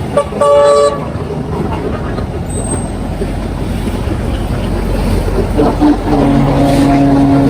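Highway traffic passing, with two vehicle horns: a short, higher-pitched toot just after the start, and a longer, lower horn held through the last two seconds.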